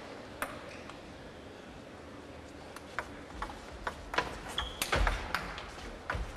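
Table tennis rally: the celluloid ball clicks off the bats and the table in quick, irregular succession, starting after about two and a half seconds of near hush. There is a brief high squeak about halfway through, and low thumps come near the end.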